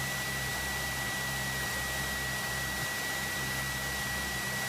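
Cessna 172's engine idling on the ground: a steady low hum under an even hiss, with a thin steady high whine, heard through the cockpit's headset audio feed.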